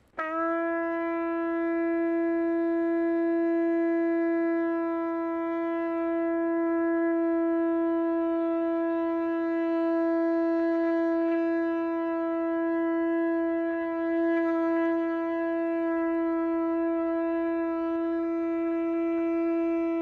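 A long spiralled horn shofar sounded in one unbroken blast on a single steady note. It scoops up into pitch as it begins and is held for about twenty seconds without a break.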